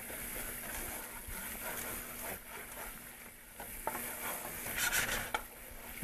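Wooden spoon stirring and scraping the bottom of a hot sauté pan, over a faint sizzle as the vodka used to deglaze it evaporates. A light knock of the spoon on the pan comes just before four seconds in.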